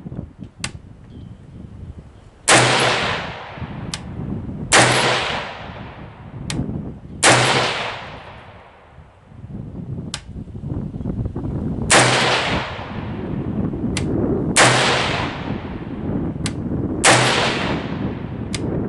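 Saint Victor AR-15 rifle in 5.56 firing slow, aimed single shots: six loud cracks, each with a ringing echo, about two and a half seconds apart, with a longer pause after the third. Fainter sharp cracks sound between the shots.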